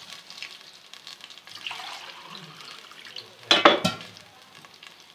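Water poured from a glass into a pot of hot ghee, sizzling and spattering, with a short loud burst of clatter and splutter about three and a half seconds in.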